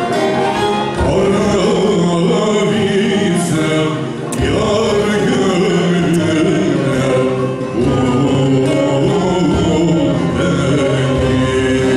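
A male solo singer performing a Turkish folk song (türkü), backed by a choir and a folk ensemble.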